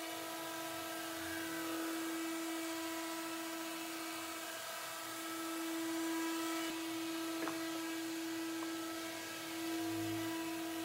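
Electric orbital sander running steadily with an even, high whine as its pad works across a wooden tabletop with an epoxy resin strip.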